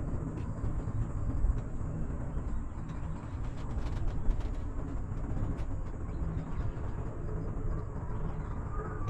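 Steady low rumble inside a moving cable car cabin as it runs along its cable, with faint scattered clicks.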